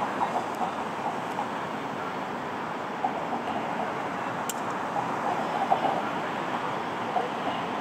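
Steady city street ambience, mostly traffic noise, with a brief sharp click about four and a half seconds in.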